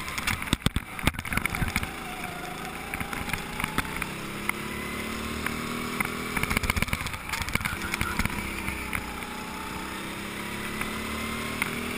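Go-kart engine running, heard from on board the kart, its pitch slowly rising and falling with the throttle. A few sharp knocks come in the first second or so.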